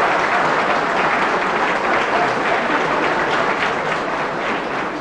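Audience applauding: many hands clapping together, easing off slightly near the end.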